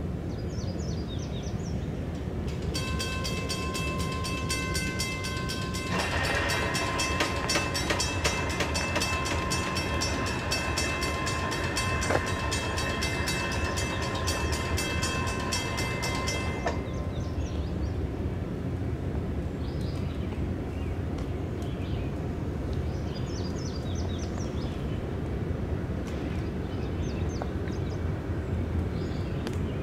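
Western Cullen Hayes mechanical grade-crossing bell ringing rapidly as the crossing activates for an approaching train. It grows louder about six seconds in and stops suddenly about fourteen seconds after it starts.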